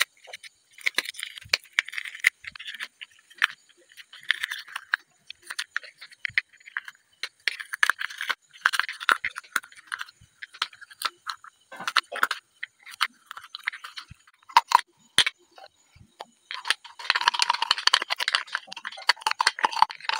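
A pointed metal tool scraping and digging crumbly white polystyrene foam out of a hardened M-seal epoxy putty pot: spells of scratching broken by sharp clicks and taps of the tool on the shell, becoming a denser, continuous scrape near the end.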